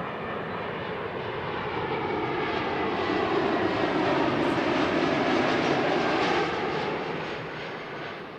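Airliner on approach to land passing close by: its engine noise swells to a peak midway and then fades away.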